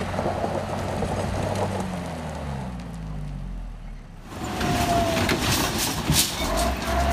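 A minibus van's engine revs hard as its wheels spin on a loose dirt climb, the pitch rising several times. About four seconds in, the sound cuts to a heavy truck labouring up the slope: a deep engine drone with a steady high whine over it and a run of sharp clicks and cracks.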